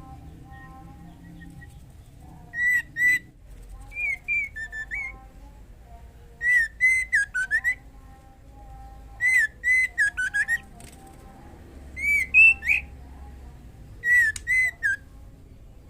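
Female white-rumped shama calling in breeding condition for a male: six short phrases of clear, whistled notes, each a quick run of slurred whistles a couple of seconds apart.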